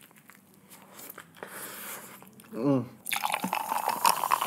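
Close-miked chewing of crunchy fast food with soft bites. A little after halfway, clear soda is poured into a tall glass of ice, hissing and fizzing with a pouring tone near the end.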